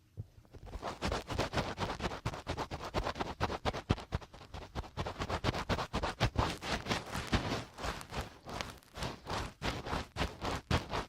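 Fingertips scratching and rubbing in a microphone's ear for finger ear-cleaning ASMR: a dense run of rapid, scratchy strokes that begins about half a second in.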